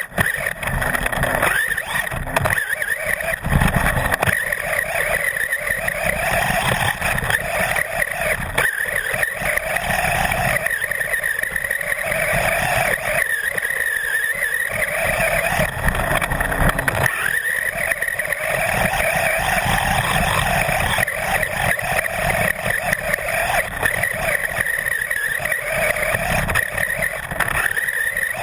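Maverick Strada XB Evo S RC buggy's brushless electric motor and geared drivetrain whining, the pitch rising and falling again and again as the throttle is worked, over the rough rumble of tyres on sand and frequent knocks from bumps. It is heard close up from a camera mounted on the chassis.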